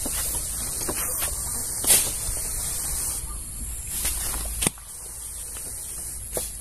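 Garden sprayer lance spraying a liquid mist with a steady high hiss. Two sharp knocks come about 2 s in and just before 5 s, and a low rumble drops away after the second.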